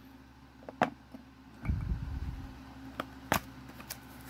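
Small cardboard parts box being handled: a few sharp clicks and taps, the loudest near the end, and a low muffled thud about two seconds in.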